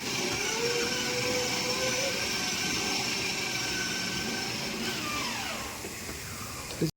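A motor running steadily with a hum and a whine; about five seconds in, the whine slides down in pitch and the sound eases off a little.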